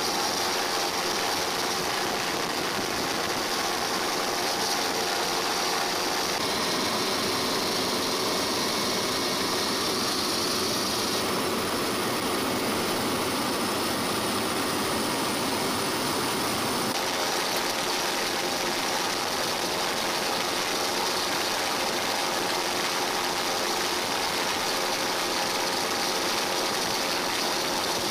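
Steady engine drone with a broad hiss, like a motor running at constant speed; its tone shifts slightly a few times.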